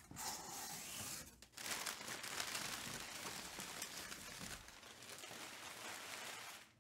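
Crumpled paper packing rustling and crinkling as a hand pulls it out of a cardboard shipping box, in one long stretch with a short pause about a second and a half in.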